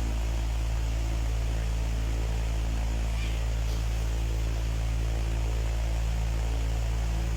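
Steady low hum with an even hiss above it.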